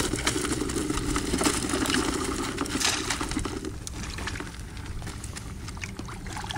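Live crawfish being shaken out of a net into a plastic crawfish basket, shells rattling and scrabbling against the mesh and plastic in a dense run of small clicks and knocks. A low drone runs under the first half.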